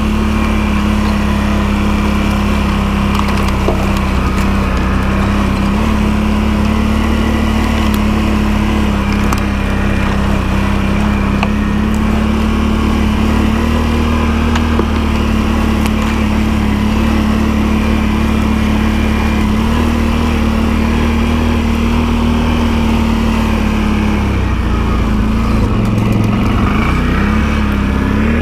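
ATV engine running steadily at an even pace, its pitch dipping briefly near the end before picking up again.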